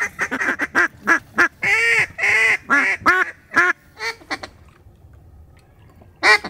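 Duck quacking: a quick run of short quacks, then a few long loud ones, trailing off in a descending series that fades away. One more sharp quack comes near the end.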